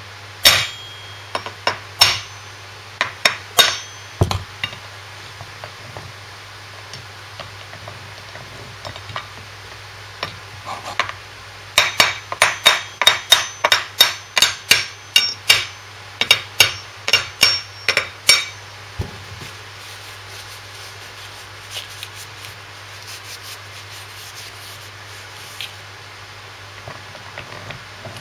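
Hammer striking a steel drift bar to tap a taper roller bearing race home on the output shaft of a Land Rover LT76 transfer box: sharp metallic taps with a ringing tone, a few in the first four seconds, then a quick run of about two taps a second from about twelve to eighteen seconds in, seating the race.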